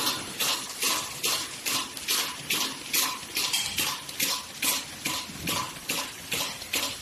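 ZH-600G automatic folder gluer running, with a regular swishing beat of about two and a half pulses a second.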